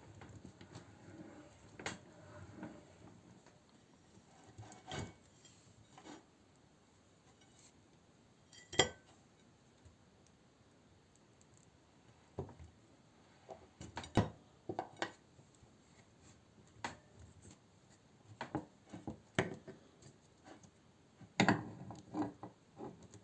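Scattered clinks and knocks of hard objects being handled, irregular and coming more thickly toward the end, with one ringing clink about nine seconds in.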